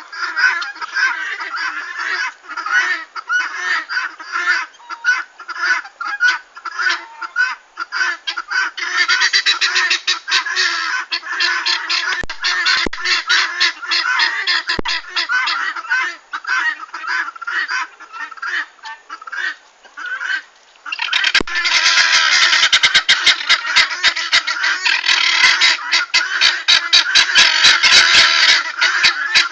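A flock of helmeted guinea fowl calling noisily: fast, harsh, repeated cries overlapping one another. The calling grows louder and more continuous about two-thirds of the way through.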